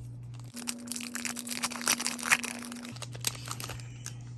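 Foil trading-card pack wrapper crinkling as it is handled and opened, a dense crackle lasting about two and a half seconds from about half a second in.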